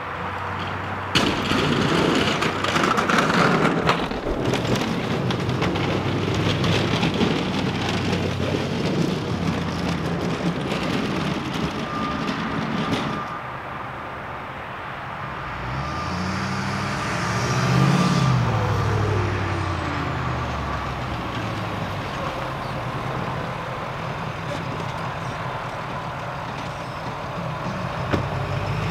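Pickup plow trucks working a snowy lot: a loud stretch of truck noise for the first dozen seconds, then a vehicle driving past with its engine pitch rising and falling about 18 seconds in, then a truck engine running steadily as a V-plow pickup pulls up near the end.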